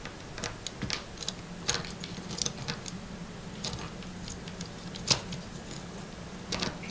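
Faint, irregular clicks and taps of small screws and nuts being handled and threaded onto M3 screws through a carbon fiber drone frame plate, with a sharper click about five seconds in.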